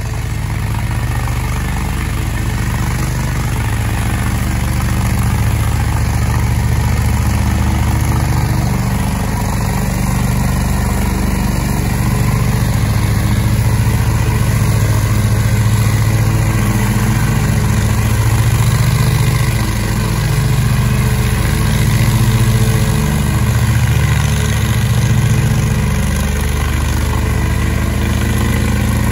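Toro GrandStand stand-on mower's engine running steadily with the blades cutting grass, its pitch shifting slightly now and then.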